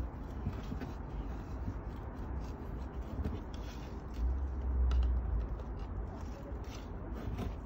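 Small hand trowel scraping up gritty potting mix and tipping it into a terracotta pot: a run of irregular scrapes, clicks and gritty rustles. A low rumble sounds for about a second some four seconds in.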